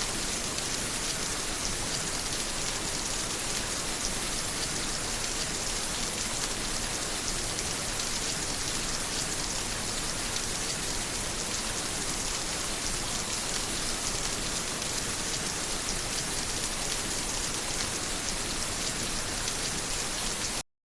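Steady rain falling, a dense even patter of drops with no thunder. It cuts off suddenly to silence near the end.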